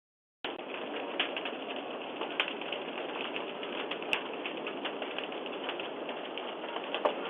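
A fire crackling and hissing, picked up by a doorbell camera's thin, narrow-band microphone: a steady hiss dotted with irregular sharp pops. It cuts in after a half-second dropout.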